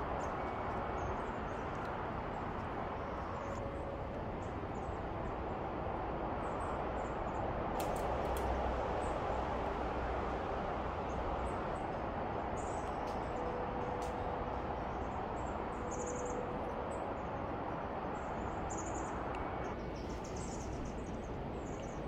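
Small birds chirping now and then, high and brief, over a steady rushing outdoor background noise; the chirps come more often in the second half.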